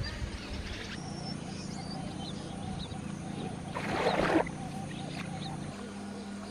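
Water splashing as a person lowers herself into a swimming pool, about four seconds in, over a steady low hum.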